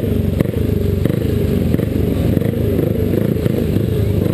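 Single-cylinder speedway motorcycle engine running at low revs as the bike is ridden slowly, its pitch wavering up and down with small throttle changes.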